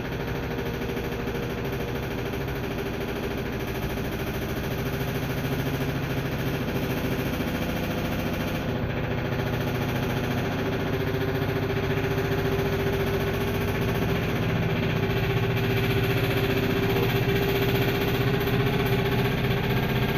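A brand-new LG 3250 washing machine, just plugged in, making a rapid continuous tapping/clicking over a steady hum, an abnormal noise for a new machine. It grows a little louder toward the end.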